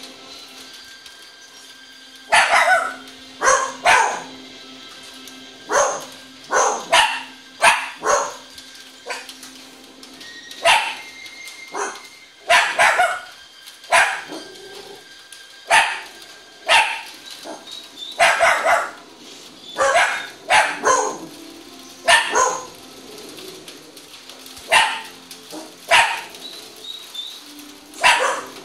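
Small dachshund–schnauzer mix dog barking over and over in short, sharp single and double barks, about one a second with brief gaps, set off by sled dogs in a film on the television. The film's soundtrack plays faintly underneath.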